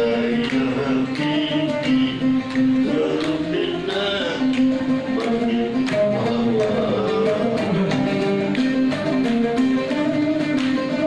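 Music: a voice singing long, ornamented notes over a plucked string instrument.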